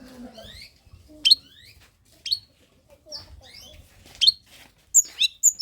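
Long-tailed shrike (cendet) singing: sharp, loud downward-sweeping notes about once a second, ending in a quick cluster of three near the end.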